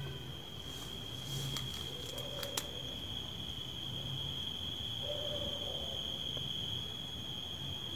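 A night insect, a cricket, trilling in one steady, unbroken high-pitched tone. Faint low sounds come and go beneath it, with a couple of sharp clicks about a second and a half and two and a half seconds in.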